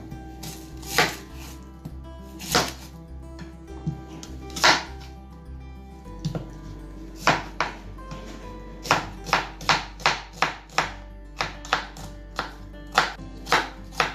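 Knife chopping onions: a few separate chops at first, then a steady run of about two to three chops a second from about halfway through. Background music plays underneath.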